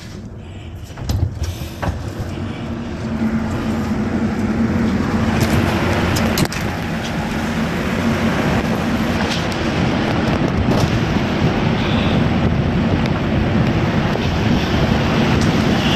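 A few clicks of a steel door's handle and latch. Then wind buffeting the microphone and a steady low machinery drone from the tanker take over, growing louder over the first few seconds as the door opens onto the open deck and then holding steady.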